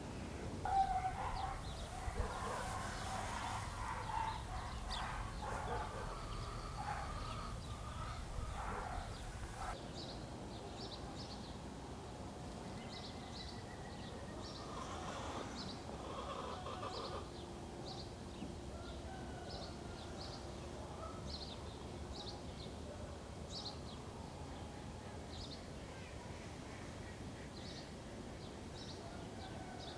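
Village farmyard ambience: hens clucking amid other bird calls through the first ten seconds or so, then a small bird's short high chirps repeating every second or so over a steady low background hiss.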